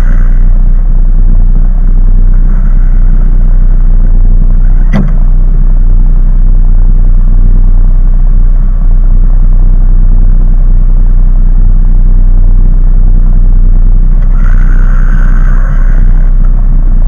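Steady, loud low rumble with one sharp click about five seconds in.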